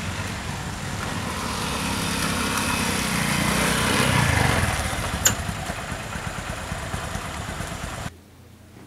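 Small motorcycle engine passing by on a dirt road, growing louder to a peak about four seconds in and then fading, with one sharp click a little after five seconds. The sound cuts off abruptly near the end.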